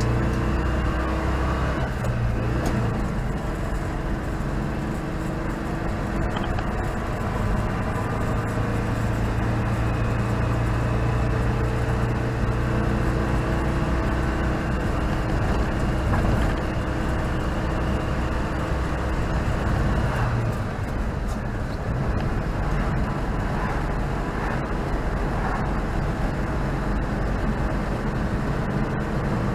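Citroen 2CV's air-cooled flat-twin engine running under way, heard from inside the cabin along with tyre and road noise. The engine note changes a little about two-thirds of the way through.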